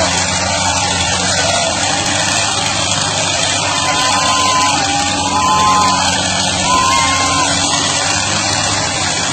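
The diesel engines of a Mahindra Arjun and a Sonalika tractor run flat out under heavy load, pulling against each other in a tug-of-war. Crowd shouts and yells run over the engine noise, with a few drawn-out calls in the middle, and background music is mixed in.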